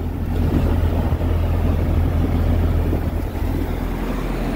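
Semi truck's diesel engine idling steadily, with a steady rush of air as the flat trailer tire is filled through an air hose on its valve.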